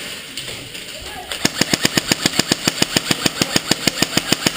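Airsoft gun firing full-auto in a long burst of sharp, even clicks, about ten shots a second, starting a little over a second in.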